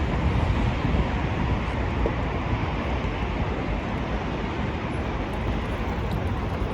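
Steady outdoor city noise: wind rumbling on the microphone mixed with the hum of traffic, with no distinct events.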